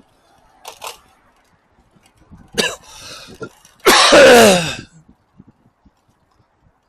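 A man's dry coughing fit with throat clearing: a short cough about a second in, a harsh cough about two and a half seconds in, and the loudest, longest hack near four seconds, its voice falling in pitch. It is a dry cough, which he takes for a cold coming on.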